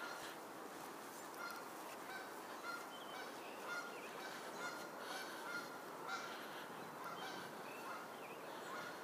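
Short, high, honk-like animal calls repeating every second or so, faint over a steady outdoor background.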